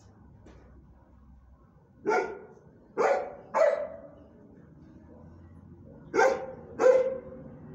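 Dog barking: five short, loud barks in three bunches. There is a single bark about two seconds in, two in quick succession around three seconds, and two more near the end.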